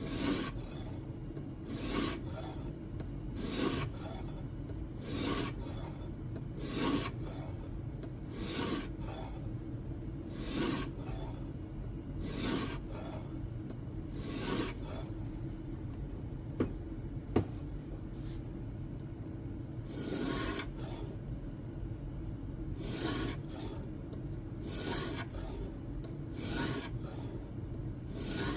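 Diamond sharpening plate swiped across the edge of a clamped N690 steel knife blade on a guided sharpening system, a rasping stroke about every two seconds. The strokes pause for a few seconds partway through, broken by two sharp clicks. It is the coarse bevel-setting stage of the sharpening.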